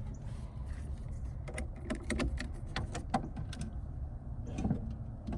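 A quick, irregular series of light clicks and taps over a steady low rumble.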